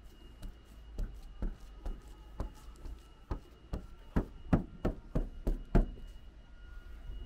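A run of about a dozen sharp taps or clicks, irregularly spaced about half a second apart and loudest in the second half, over a faint steady high-pitched tone.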